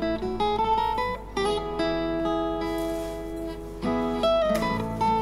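Background music: an instrumental melody of short sustained notes.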